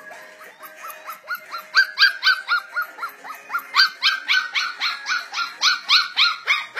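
A four-week-old golden retriever puppy yipping: a rapid string of short, high yelps, each falling in pitch, about four a second, starting about a second in.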